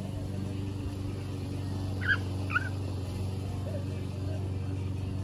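A mower's engine runs with a steady low hum. About two seconds in, the small dog gives two short, high yips half a second apart.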